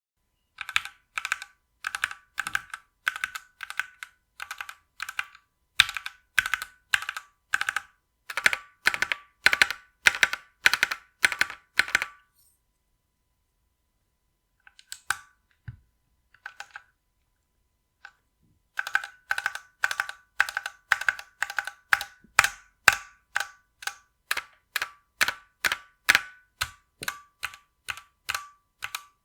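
Keys on a stock Keychron Q1 aluminium mechanical keyboard pressed in a steady rhythm, about two strokes a second. Each stroke carries a high metallic ringing ping from the case. The typing pauses for a few seconds in the middle, with only a few scattered presses, then resumes.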